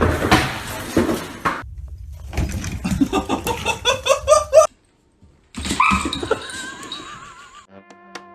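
Animal calls in short clips that cut off abruptly, the middle one a run of rising pitched calls.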